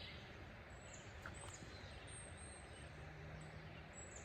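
Faint, steady rush of creek water, with a few short, high bird chirps over it.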